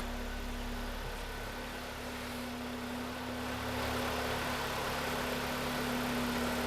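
A Kia Cerato's freshly rebuilt G4KD 2.0-litre four-cylinder petrol engine idling steadily on flushing oil, just after its first start since the rebuild. It gets a little louder about four seconds in.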